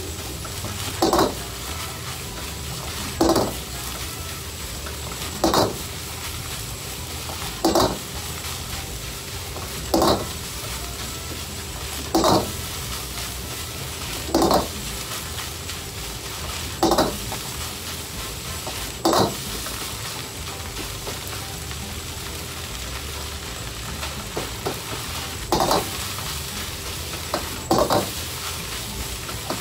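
Fried rice being stir-fried in a wok with a steel ladle: a steady sizzle, broken about every two seconds by a loud clank and scrape of the ladle against the wok. The clanks pause for a few seconds a little past the middle.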